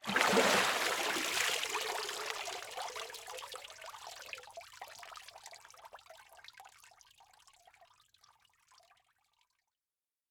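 A rush of water that fades over about seven seconds into small scattered bubbling gurgles, then stops.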